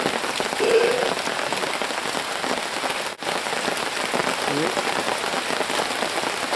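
Steady rain falling, an even hiss of many small drops pattering, which cuts out for an instant about three seconds in.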